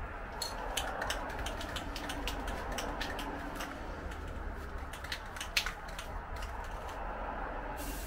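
Aerosol spray-paint can being shaken, its mixing ball rattling in irregular clicks, then a steady hiss from the nozzle as spraying starts near the end.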